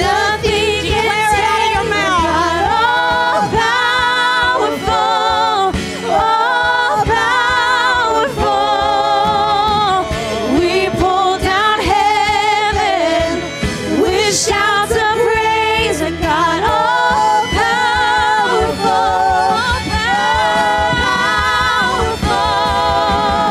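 Live contemporary worship song: a woman singing lead, with electric guitar, keyboard and drums.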